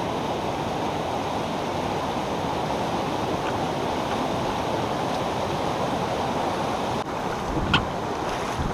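Creek water pouring over a log jam, a steady loud rush of falling water. A few short knocks near the end.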